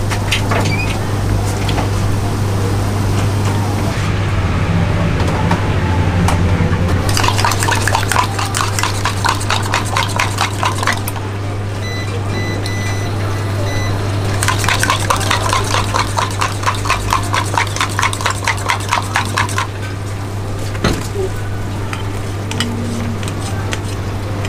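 Oil bubbling in a deep fryer at first, then eggs beaten in a cup with a metal utensil: rapid, even clicking strokes, about four a second, in two spells of about four and five seconds. A steady low hum runs underneath.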